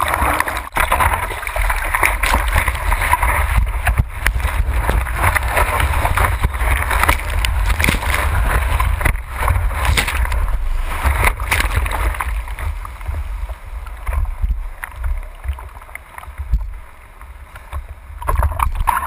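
Ocean whitewater splashing and churning over a waterproof action camera at water level as a surfer paddles through breaking waves, with a steady low rumble underneath. The churning eases for a few seconds near the end, then picks up again.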